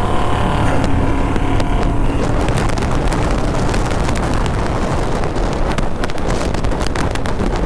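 Motorcycle engines pulling hard at full throttle in a drag race, with heavy wind buffeting the microphone. A few steady engine tones stand out in the first couple of seconds, then the engine sound is buried under the wind roar.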